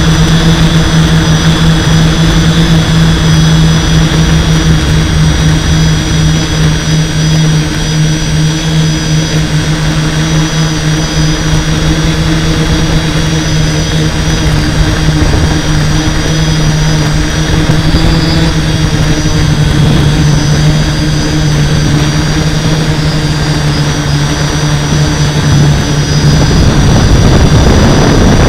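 Hexacopter's six electric motors and propellers running steadily in a hover, heard from its onboard camera as a strong, even hum with a thin high whine above it. The sound swells slightly near the end.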